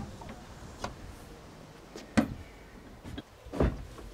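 A few scattered knocks and clacks of a wooden table board and its metal support poles being handled and set in place, the loudest about two seconds in.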